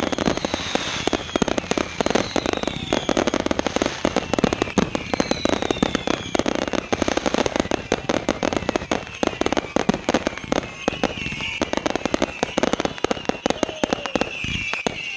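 Fireworks going off in a rapid, dense barrage of bangs and crackling pops, with several whistles falling in pitch in the first half.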